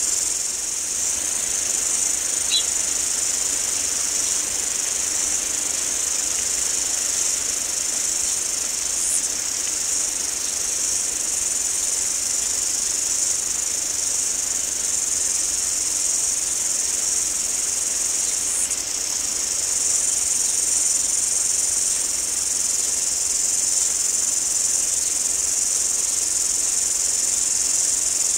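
Steady, high-pitched chorus of many insects, one continuous shrill without breaks.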